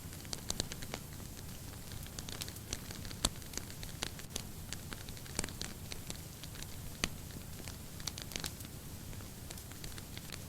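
Wood fire burning in a fireplace, crackling and popping at irregular intervals over a low steady rumble of the flames, with a sharper pop about three seconds in and another near seven seconds.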